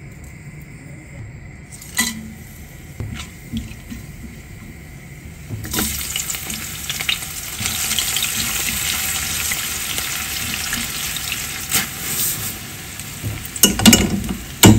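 Sliced onion, cumin seeds and spices sizzling in hot ghee and oil in a frying pan, stirred with a spatula; the sizzle starts about six seconds in. Near the end, clattering and thuds as rice is tipped from a metal mesh strainer into the pan.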